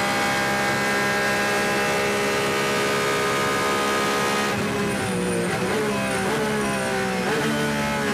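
Porsche 911 RSR race car's flat-six engine heard onboard, holding steady high revs. About four and a half seconds in the driver lifts off, and the revs fall in steps, with short throttle blips, as the car slows and shifts down.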